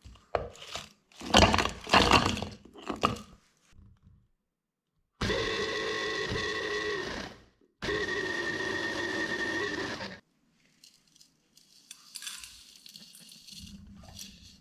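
Irregular crunching and scraping, then a small electric blender motor running in two bursts of about two and a half seconds each with a short pause between, then faint scraping.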